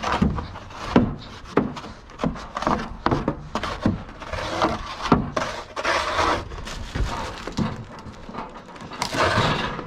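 Irregular knocks and thuds with short scraping and rustling bursts, as a heavy object is wrestled about, with hard breathing between them.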